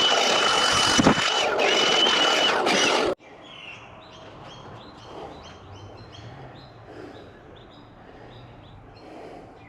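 Chainsaw running loud with a steady high whine, cut off abruptly about three seconds in. Then a quiet outdoor background with a bird chirping over and over in short high notes.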